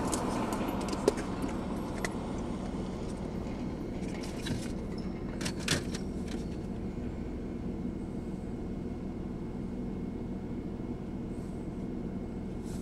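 Parked car's engine idling, a steady low hum heard inside the cabin, with a few light clicks and rustles, the sharpest about a second in and a cluster around six seconds in.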